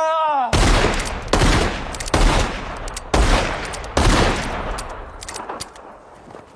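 Five revolver shots fired about a second apart, each loud and sharp with a long echoing tail. A short cry comes just before the first shot.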